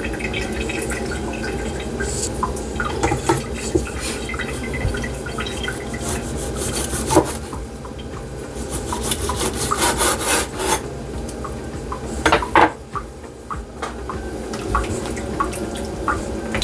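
Knife trimming fat and meat from raw oxtail pieces: repeated scraping and cutting strokes with short clicks, busiest in the middle of the stretch.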